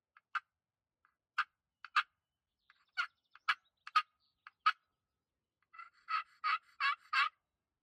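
Turkey yelps: short, single notes spaced irregularly, then a quicker run of four louder yelps near the end.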